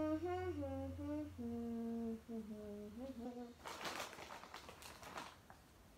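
A voice humming a short tune in held notes that step up and down, followed by about a second and a half of rustling noise.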